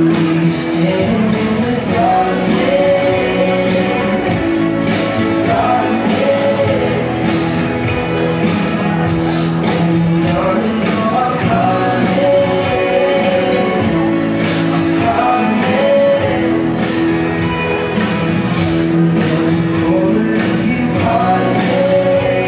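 Rumba music with a singing voice and a steady beat, played for the dancers.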